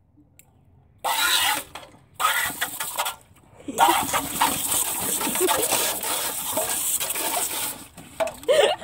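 Garden hose spray nozzle hissing as water jets out, turned on about a second in, cut off briefly twice, then spraying steadily until shortly before the end.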